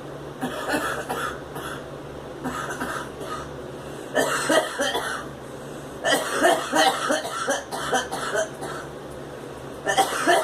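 A girl coughing in repeated fits after inhaling smoke. A few short coughs come near the start, then longer runs of rapid coughs from about four seconds in and from six to nearly nine seconds, with another fit starting near the end.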